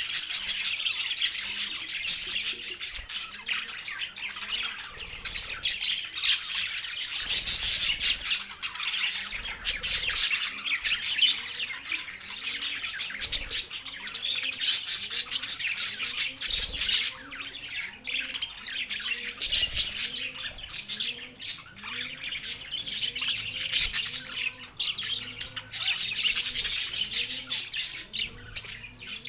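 Two male budgerigars chattering without pause, a dense stream of rapid chirps and squawks.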